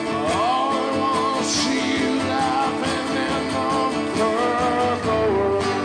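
Live acoustic guitar strummed steadily while a man sings a wordless, wavering melody over it, settling onto a held note near the end.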